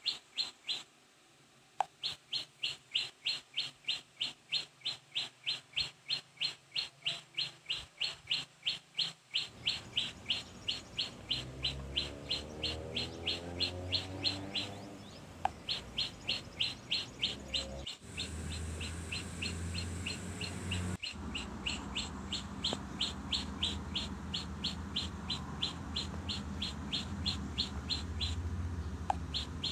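A bird calling a short, high chirp over and over, very evenly, about three or four times a second, with brief pauses. A steady low rumble of background noise joins about ten seconds in.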